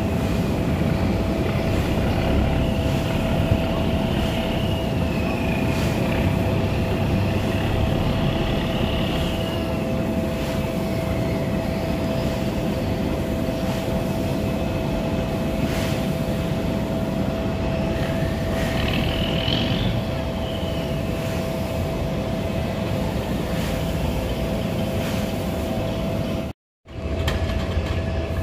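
Steady mechanical drone of diesel engines and machinery, with a constant whine running through it and a few faint high tones that slide up and down. The sound cuts out briefly near the end.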